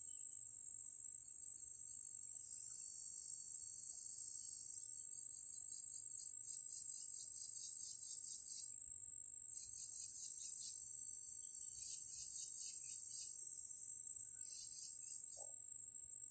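Insects calling: a steady high-pitched trill, with bursts of rapid, pulsing chirps joining in again and again from about five seconds in.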